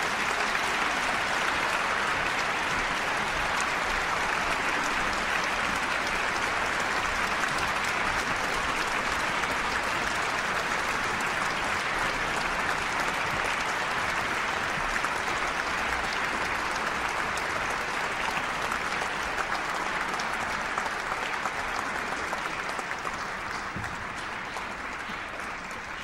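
Concert-hall audience applauding steadily, thinning slightly near the end.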